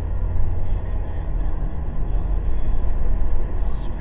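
Car driving along a road: a steady low rumble of tyre and engine noise heard inside the cabin.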